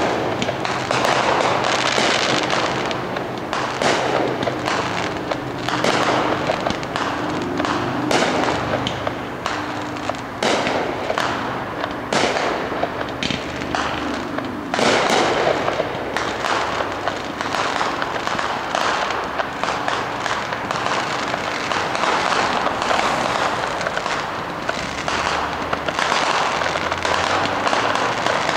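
Aerial fireworks display: shells launching and bursting in quick succession, sharp bangs and crackling overlapping one another, with an especially loud burst about halfway through.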